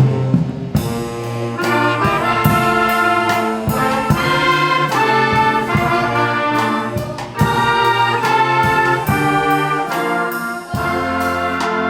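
Brass ensemble music: trumpets and trombones playing a melody over a steady percussive beat.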